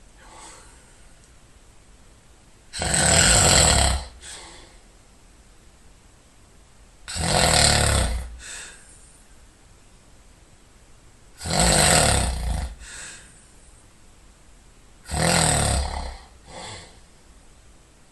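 A sleeping person snoring loudly: four snores, each about a second long and roughly four seconds apart, each followed by a brief fainter breath.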